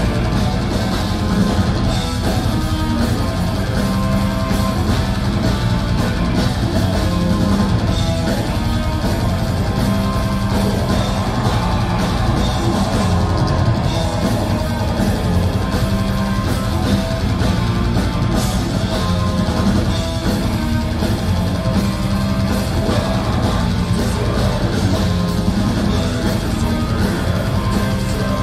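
A heavy metal band playing live: distorted electric guitars and a drum kit at full, steady volume in an instrumental passage.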